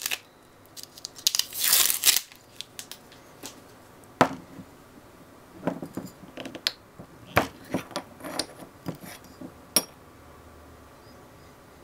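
Hands handling packing material and a glass perfume bottle: a short crinkling, tearing rush about a second in, then scattered clicks and knocks, with one sharp click near the end.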